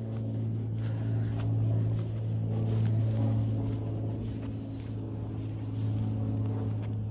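Piston engine of a small propeller airplane from a nearby airfield droning steadily overhead, with a low, even hum that wavers slightly in level.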